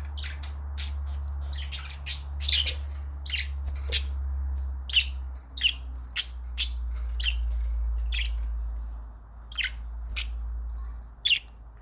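Budgerigars chirping and squawking: many short, sharp high calls scattered irregularly, over a steady low hum that fades out near the end.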